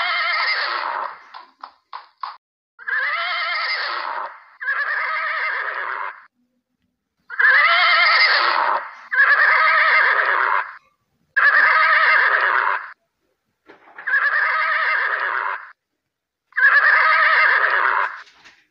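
Horses neighing over and over, one long whinny after another with short gaps, about eight in all. A few short hoof clops sound between the first two calls.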